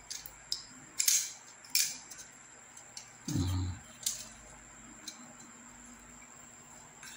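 Plastic clicks and knocks from a selfie-stick tripod's handle being turned and worked by hand: a few sharp clicks about a second in, near two seconds and around four seconds, with a brief low sound a little after three seconds.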